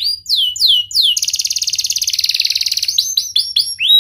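Domestic canary singing: three downward-sliding whistles, then a very fast rolling trill lasting about two seconds, then a run of quick sharp chips.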